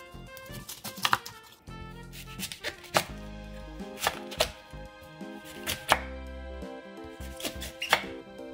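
Kitchen knife chopping through green garlic stalks onto a wooden cutting board: sharp, irregular chops about every second, some in quick pairs, over light background music.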